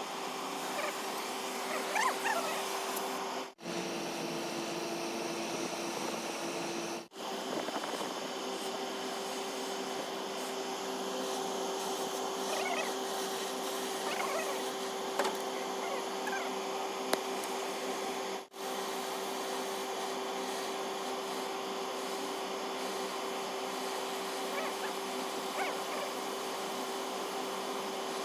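A steady machine hum with one even tone in it, broken three times by brief dropouts, with a few faint squeaky chirps over it.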